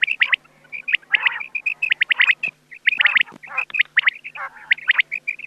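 Rain quail calling: short, sharp high notes repeated in quick clusters, with brief gaps between the bursts.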